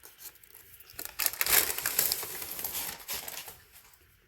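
Backing paper being peeled and crinkled off a peel-and-stick vinyl floor tile: a crackling rustle starting about a second in and fading out after about two and a half seconds.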